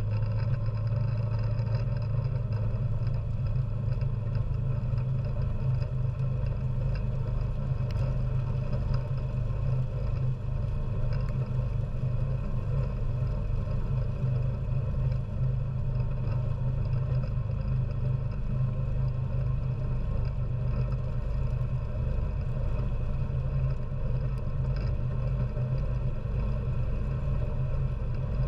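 ATV engine running steadily as the machine drives along, a constant low hum with no revving.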